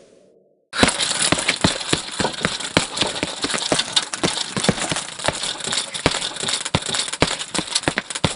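Dense, irregular clattering rattle, many quick clicks over a hiss, starting suddenly just under a second in after near silence.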